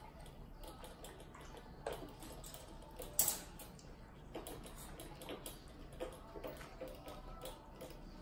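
Dog eating dry kibble from a stainless steel bowl: irregular crunches and clicks of kibble against the metal, with one louder clack about three seconds in.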